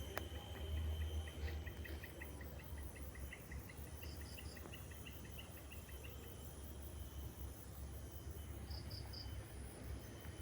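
Insects chirping: a fast run of ticks in the first few seconds, short three-pulse chirps that recur every few seconds, and a steady high buzz, over a low rumble.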